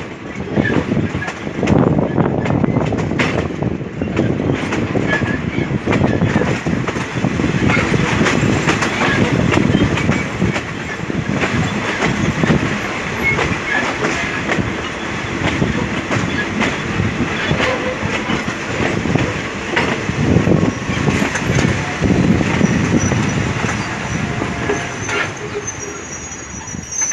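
Passenger train running along the track, heard from an open coach window: a steady rolling rumble with wheel clatter over the rail joints, and wind rush. A thin high squeal comes in near the end.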